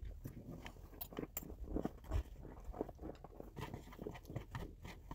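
Metal fork and spoon clicking and scraping against a plate as food is scooped up, a run of light irregular clicks.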